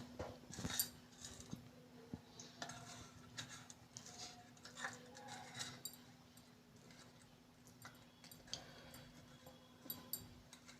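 Faint, scattered clicks and light scrapes of a kitchen utensil against a plate, over a low steady hum.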